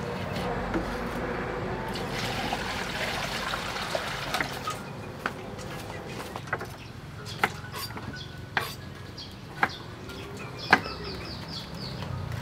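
Liquid sloshing in a metal wok as a ladle is worked through it for the first few seconds. Then come scattered light clinks and knocks, and a brief run of high chirps about eleven seconds in.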